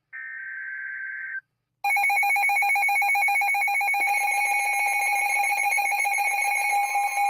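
An Emergency Alert System header data burst, a warbling digital tone about a second long, then after a short gap the EAS two-tone attention signal comes on loud about two seconds in and holds steady, a buzzing, fast-beating alarm tone. It announces a severe thunderstorm warning.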